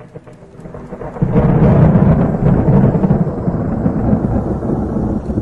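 A loud, deep rumble swells in about a second in and slowly dies away, with faint held music tones underneath.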